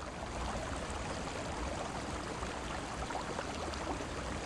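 Water flowing in a stream: a steady rush with many small splashes.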